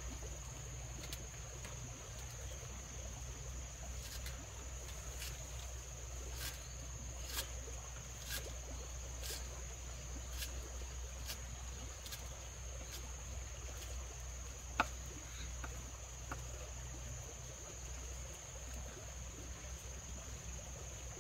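Insects droning with a steady high-pitched note, over a low rumble. Through the middle, light clicks come about once a second, with one sharper click near fifteen seconds in.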